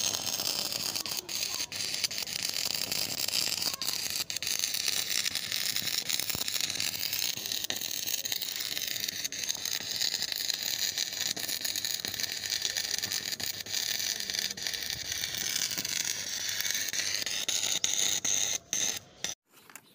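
Stick (shielded metal arc) welding arc burning on steel: a steady crackling hiss that breaks off suddenly about 19 seconds in as the arc is broken.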